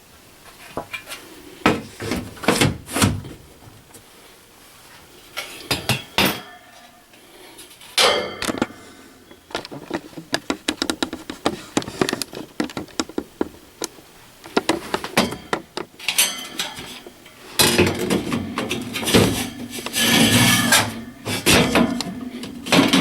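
A furnace's removable cover panel being handled and fitted back into place: repeated knocks, clicks and scrapes, with a busier stretch of rattling near the end as it seats.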